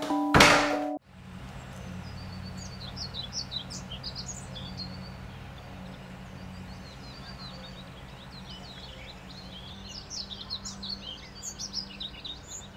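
Music from a portable radio ends with a loud burst and cuts off suddenly about a second in. Park ambience follows: songbirds chirping over a steady low hum.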